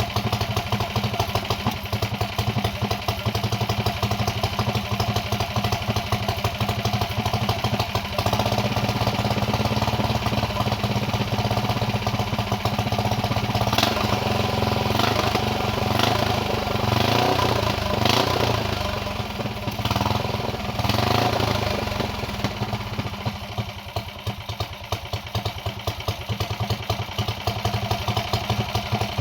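Motorcycle engine idling steadily, then revved in several short throttle blips about halfway through before settling back to idle.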